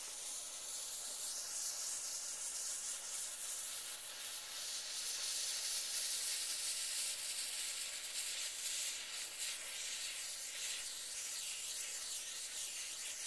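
Ground firework fountain burning, spraying sparks with a steady hiss.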